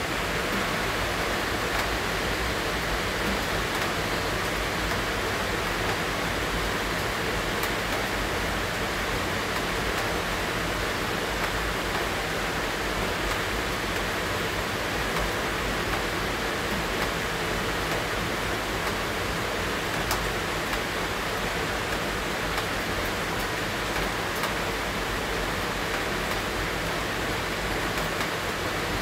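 Steady rain falling, an even hiss with a few faint ticks.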